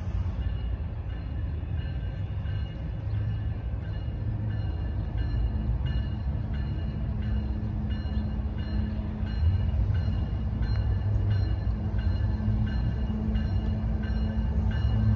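CSX freight train's lead diesel locomotive approaching, a steady low engine rumble that grows louder as it nears, stepping up about halfway through.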